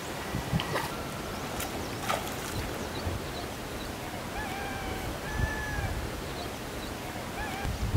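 Steady outdoor rush of wind on the microphone with low buffeting, a few sharp clicks early on, and a bird giving several short whistled calls in the second half.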